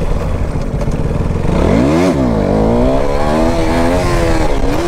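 Motorcycle engine revving: the revs rise and fall sharply about two seconds in, then run on with smaller rises and dips.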